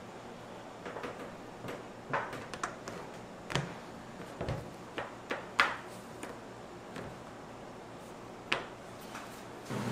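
Irregular light clicks and knocks of small hard objects being handled and set down, about a dozen in all, the sharpest a little past halfway and another near the end, over a low steady background hum.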